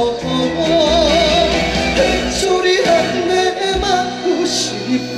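Live trot band music through a stage sound system: sustained chords under a melody line with a wide vibrato.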